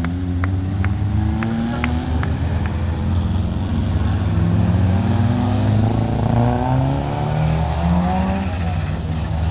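Small hatchback race cars driving one after another through a hairpin, engines running over a steady low rumble, their revs rising several times as they pull away from the bend. A few sharp claps in the first couple of seconds.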